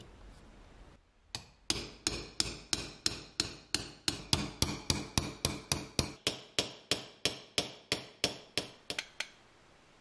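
A small hammer tapping on metal in an even rhythm, about three blows a second, some two dozen in all. Each blow rings briefly, and the tapping stops shortly before the end.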